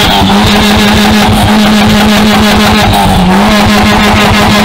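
Peugeot 206's four-cylinder engine revved hard and held at high revs, loud at the tailpipe, with a brief dip and recovery about three seconds in.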